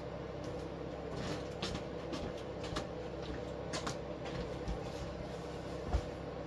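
Steady low room hum with a few faint scattered clicks and rustles, and a soft low thump near the end.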